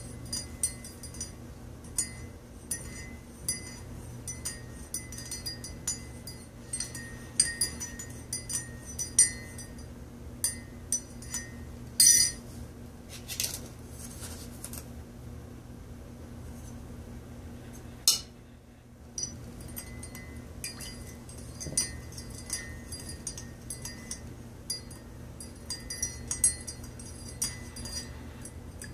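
A metal teaspoon stirring coffee in a ceramic mug, clinking quickly and repeatedly against the inside of the mug. The clinking stops for several seconds midway, with a louder knock at each end of the pause, then starts again.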